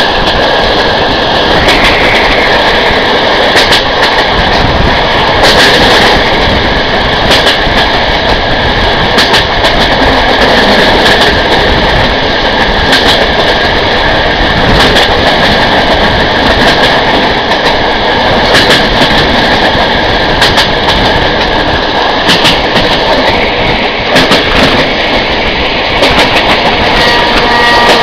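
Passenger train carriage running at speed over jointed track: a steady rumble and rushing noise, with wheels clicking irregularly over the rail joints.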